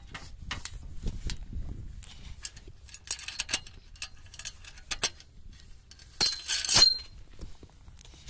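Metal clinking and rattling: a chain and hook knocking against a rusty iron farm implement as it is handled. Scattered light clicks, with sharp clinks about three seconds in and a louder jangling burst a little after six seconds.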